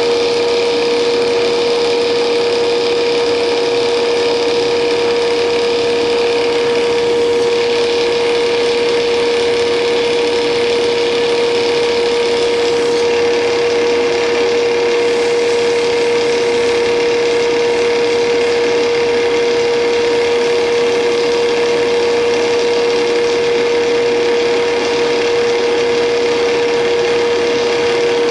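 Intorex CI 1500 hydraulic copy lathe running with its dust extraction, a loud, steady machine hum carrying one strong held tone.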